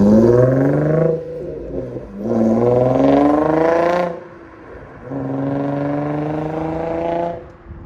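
Infiniti G35's V6 through a full Motordyne exhaust under a hard pull. The engine note rises in pitch, breaks off at the gear changes about a second and about four seconds in, then holds steadier before fading out near the end.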